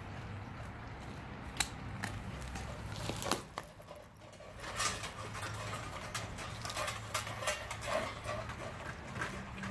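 Dogs chewing raw turkey carcass, bones crunching and cracking in irregular clicks. The clicks are sparse at first and come thick and fast from about halfway in.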